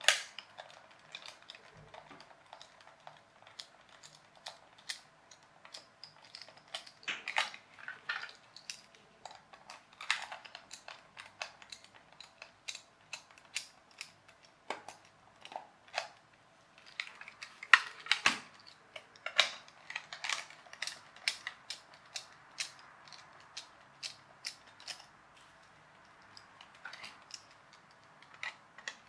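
Precision screwdriver working screws out of the plastic underside of a toy RC car: irregular light clicks and scrapes of the metal tip and plastic as the car is turned in the hand, with one sharper click about 18 seconds in.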